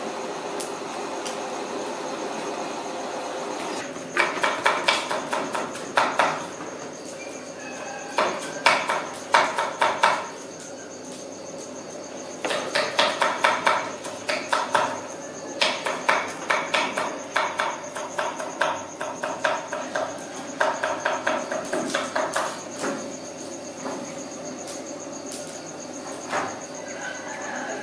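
Rapid runs of sharp knocks, several strikes a second, in bursts of one to three seconds with short pauses, starting about four seconds in and dying away near the end, over a steady background hum.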